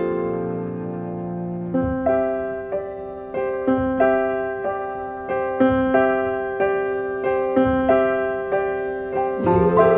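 Background music on piano: a held chord, then notes struck in an even, repeating pattern about twice a second, each note ringing and fading.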